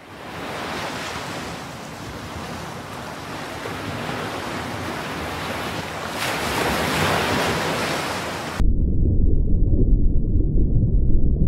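Ocean surf with wind buffeting the microphone, swelling about six seconds in. About eight and a half seconds in it cuts off suddenly, and a loud, deep, muffled rumble takes over.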